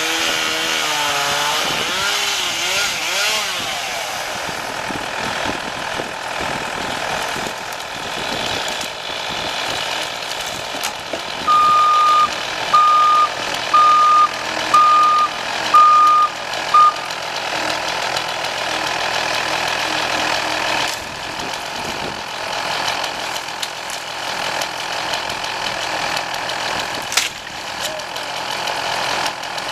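A chainsaw winds down at the start, then an engine runs. Midway a vehicle's backup alarm beeps six times, about once a second, the last beep cut short: the machine is reversing.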